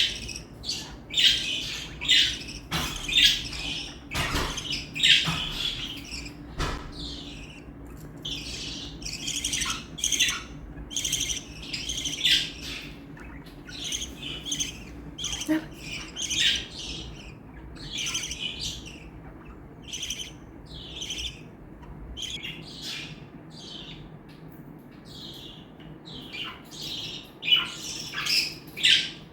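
Budgerigars chirping and chattering: a rapid, continuous string of short, high-pitched chirps and squawks, several a second.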